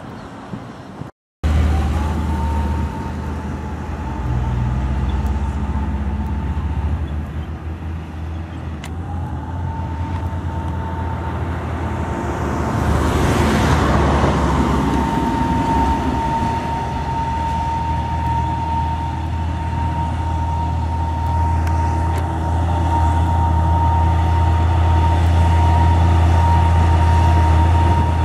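Heavy Hino diesel trucks labouring up a steep grade in low gear: a loud steady engine drone under a steady high whine, the "scream" of trucks climbing under load. About halfway through a truck passes close with a swelling rush of noise.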